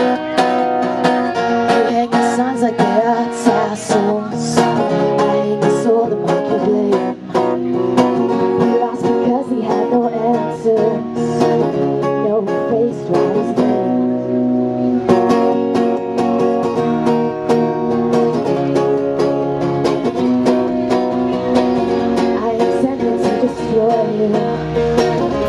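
Live acoustic band playing, with plucked and strummed string instruments such as guitar carrying a steady, rhythmic accompaniment.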